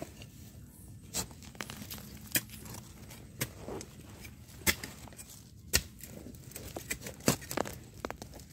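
Dry leaf litter and twigs crackling under handling, a string of sharp snaps about one a second with light rustling between.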